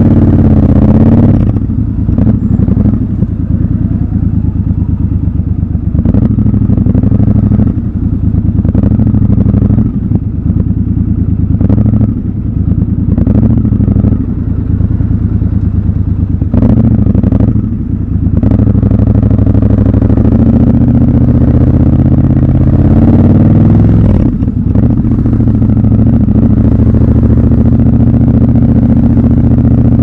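Triumph Scrambler 1200 XC's 1200 cc parallel-twin engine at low road speed, the throttle opened and closed every second or two through the first half, then held steadier with one brief dip about two-thirds of the way through.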